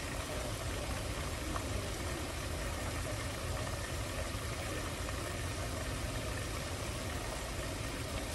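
Flour-dredged chuck steak pieces deep-frying in a pot of oil: a steady sizzle and bubble over a low, even rumble. The cook thinks the grease was not hot enough when the meat went in.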